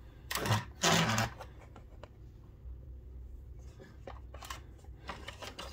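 Hands handling a plastic toy X-wing: two louder rustling noises in the first second or so, then faint scattered clicks and taps of plastic.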